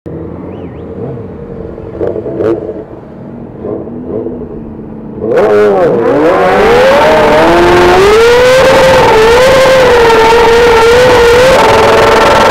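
Motorcycle engine held at high revs during a tyre burnout, its pitch dipping, climbing and then wavering at a near-constant high pitch. It cuts in suddenly and very loud about five seconds in, after a few seconds of quieter muffled noise with a couple of knocks.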